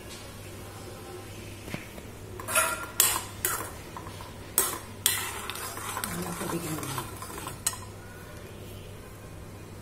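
A slotted metal spoon stirs chana dal simmering in sugar syrup in a metal kadai. It makes a run of sharp clinks and scrapes against the pan between about two and a half and eight seconds in, over a faint steady low hum.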